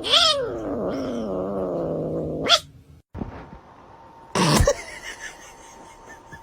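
A cat's long drawn-out meow, about two and a half seconds, falling in pitch and then wavering. It is followed about four and a half seconds in by a short, loud, sharp sound.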